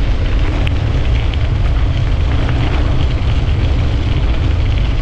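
Wind buffeting the microphone, with the rolling rumble of a bicycle's tyres moving fast on pavement; a steady, loud low rumble with a few faint ticks.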